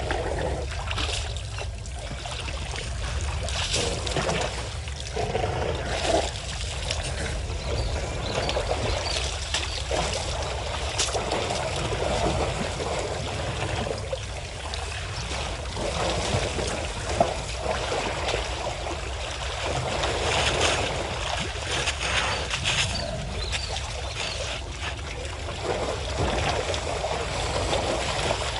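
Water sloshing and splashing in a shallow waterhole as African elephants wade and drink and their calves swim and play, irregular splashes coming and going, over a steady low rumble.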